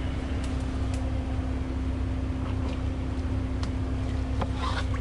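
ASV RT-40 compact track loader's diesel engine idling steadily, a constant hum with a low rumble. Near the end, a brief scraping rustle of plastic landscape edging being pulled by hand.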